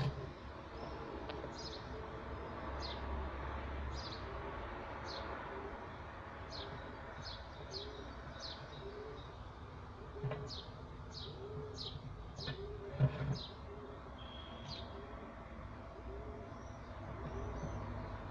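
Small birds chirping in a string of short, falling chirps, with a lower cooing note repeating steadily underneath like a dove or pigeon. A couple of dull knocks come about ten and thirteen seconds in, the second the loudest sound.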